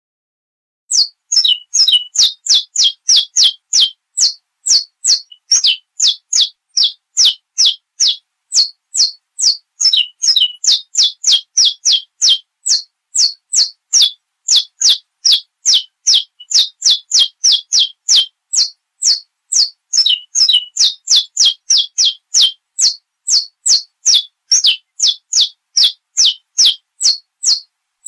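Saffron finch (canário da terra) singing a long run of sharp, high notes, each sliding quickly downward, about three a second, starting about a second in.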